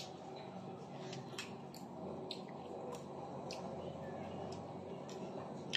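Faint clicks and soft squishing of people handling and eating soft corn gorditas at a table, a small click every half second or so, over a low steady background hum.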